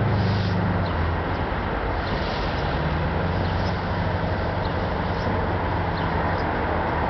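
Steady road traffic noise with the low hum of an engine, loudest at the start and easing after about a second.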